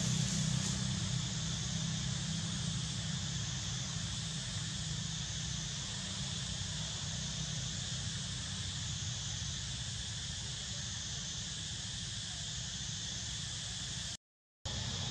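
Steady insect chorus with a low hum underneath, with no distinct calls; the sound cuts out completely for a moment near the end.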